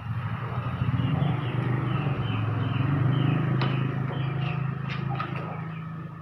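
A low engine drone that swells, then fades near the end, under a row of regular high chirps. A few sharp knocks come in the second half.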